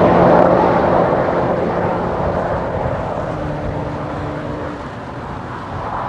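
Volkswagen Golf V GTI's turbocharged 2.0-litre four-cylinder engine and exhaust heard from behind as the car speeds away after a high-speed pass, its note fading steadily into the distance.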